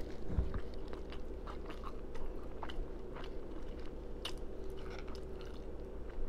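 Close-miked chewing and mouth-smacking, with irregular small crunches and wet clicks as crispy fried food is bitten and chewed.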